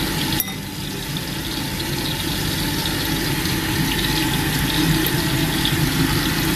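Water at a rolling boil in a stainless saucepan, bubbling steadily as shrimp are dropped in, with fish frying in oil in the next pan.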